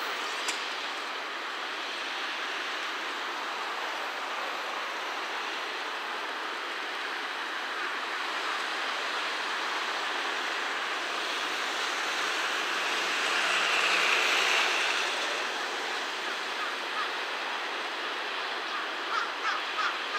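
Steady rushing background noise with no clear tone or rhythm, swelling a little about two-thirds of the way through.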